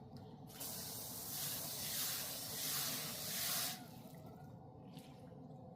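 Garden hose spraying water in a steady hiss, starting about half a second in and cutting off sharply after about three seconds.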